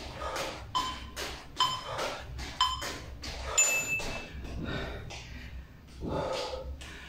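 Workout interval timer counting down: three short beeps about a second apart, then one longer, higher beep that marks the end of the exercise interval.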